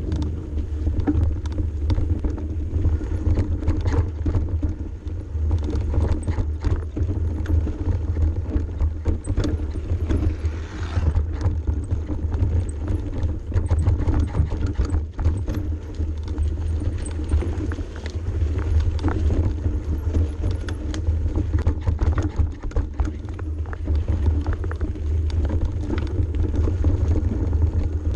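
Mountain bike descending a steep, rough single track: a constant low rumble with many irregular rattles and knocks from the bike and tyres going over the trail.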